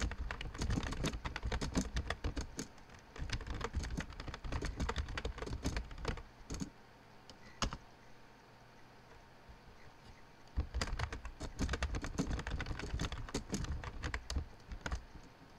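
Typing on a computer keyboard: a quick run of keystrokes for about six and a half seconds, a pause of about three seconds with one stray keystroke, then another run of keystrokes for about four seconds.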